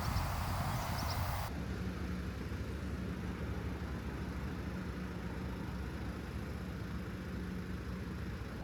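A steady low drone of a car driving, taking over after a cut about a second and a half in from a brief hiss with a few faint high chirps.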